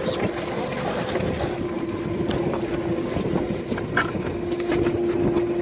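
Sportfishing boat's engine running with a steady hum, with water splashing and scattered knocks as a bluefin tuna is gaffed and hauled over the rail.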